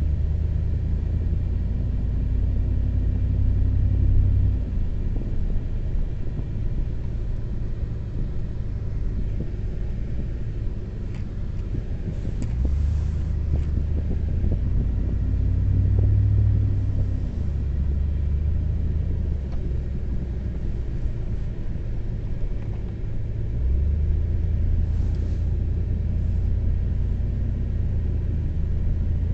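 Pickup truck driving on town streets, heard from inside the cab: a steady low road and engine rumble, with the engine note rising and easing off a few times as it pulls away and slows.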